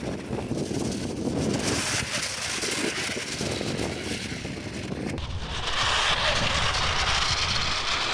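Direct-drive brushless RC snowcat running over icy snow, its motors and tracks making a rough, noisy rush with wind on the microphone. The sound changes abruptly about five seconds in to a brighter hiss over a low rumble.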